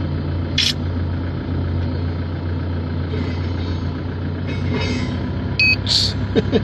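Heavy diesel earthmoving machinery running steadily with a constant low drone. A short hiss comes about half a second in, and near the end there is a brief high beep followed by another hiss.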